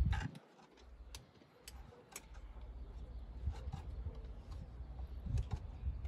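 Scattered light clicks and taps from hand work at a Mercedes W210's steering wheel and column, coming irregularly over a low rumble.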